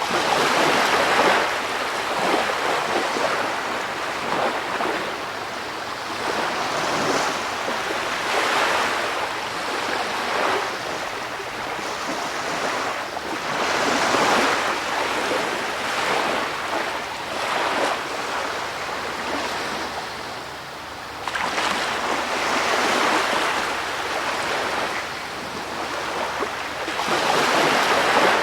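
Ocean waves washing in and out, a hiss of surf that swells and fades every few seconds.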